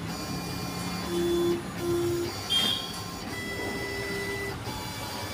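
Bravo 4-foot vinyl cutting plotter running a cutting test: its motors whine in short steady runs as the blade carriage and the vinyl move, the pitch changing from one move to the next.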